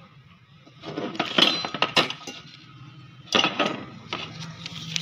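Metal TV wall-mount brackets clinking and clattering as they are picked up and moved by hand, with sharp knocks about one and a half, two and three and a half seconds in.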